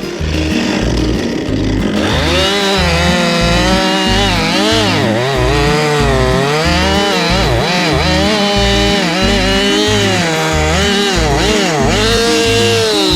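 Chainsaw with a freshly sharpened chain cutting through a maple trunk, its engine pitch dipping and recovering again and again as it loads up in the cut. Background music with a steady beat plays under it.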